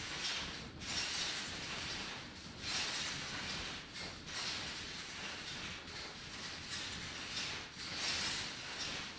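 Hissing noise from a sound installation, strongest in the high range, swelling and briefly dipping every second or two.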